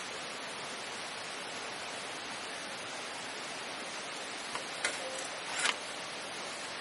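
A steady rushing noise, like running water, with a few sharp clicks and crackles about five seconds in.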